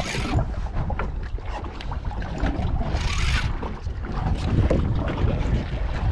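Fishing boat's engine running steadily while under way, with wind buffeting the microphone. There is a brief louder hiss about three seconds in.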